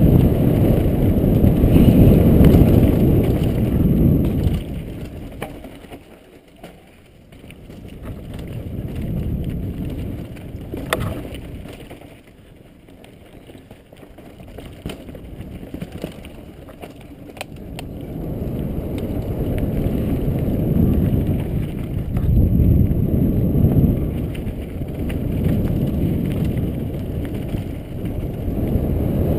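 Wind buffeting a helmet-mounted camera's microphone along with tyres rolling on a dirt trail during a mountain-bike descent. It is loud at first, drops away for a stretch in the middle as the bike rattles and knocks over rocks, with one sharp knock, then builds again as speed picks up.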